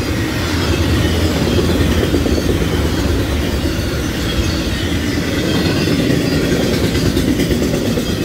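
Florida East Coast Railway intermodal freight cars loaded with highway trailers rolling past, their steel wheels on the rails making a steady, even noise.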